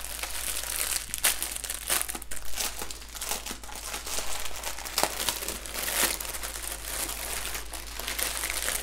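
Clear plastic wrap and small plastic bags of diamond painting drills crinkling and crackling as a wrapped bundle is pulled open by hand, with sharp crackles throughout.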